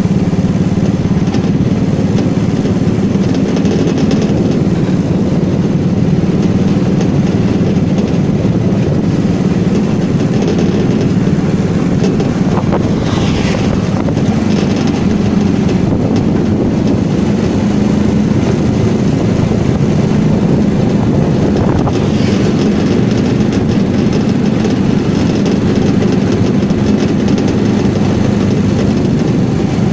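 A motorcycle engine runs steadily while riding, with rushing wind noise on the microphone.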